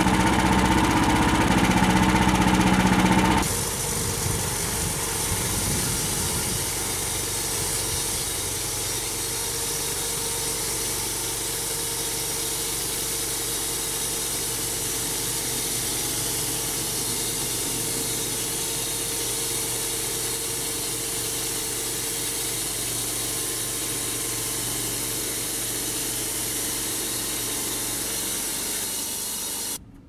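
Homemade band sawmill running, its band blade sawing through a spruce board with a loud steady hum for the first three seconds or so. The engine and spinning band wheels then run on more quietly and evenly, and the sound cuts off abruptly just before the end.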